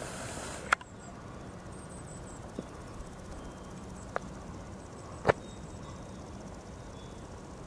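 A steady faint outdoor hiss with a few short, sharp clicks spread through it. The loudest click comes about a second in, and three quieter ones follow over the next few seconds.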